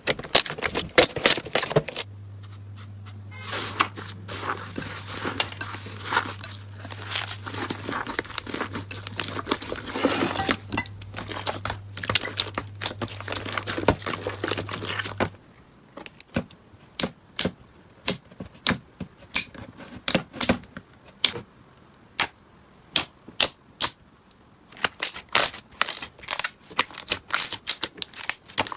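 Slime being squeezed and worked by hand, making rapid sticky clicks, crackles and pops. A denser crackling stretch with a low hum underneath gives way, about halfway in, to sparser single pops, and the clicking turns quick and dense again near the end.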